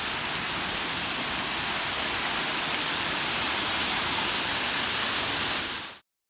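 Steady rushing of a waterfall, a dense even roar of falling water, cut off abruptly about six seconds in.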